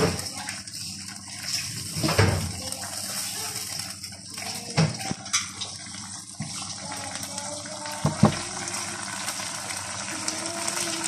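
Ground chili paste sizzling in hot oil in a frying pan as a spatula stirs it, with a handful of sharp scrapes and knocks of the spatula against the pan.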